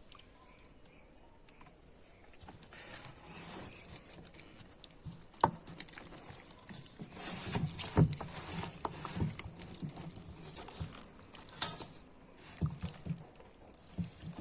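Kitchen handling noises: scattered light clicks and knocks, sharpest about a third and halfway through, with a few short stretches of rustling hiss.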